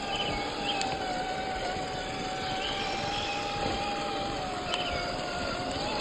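Electric drive of an RC rock crawler running slowly: a steady motor and gear whine over low rumbling noise, its pitch rising a little near the end as the throttle comes up.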